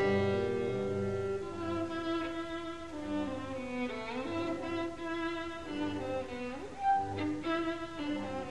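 Background music: bowed strings, violin and cello, playing sustained, changing notes over a recurring low bass part.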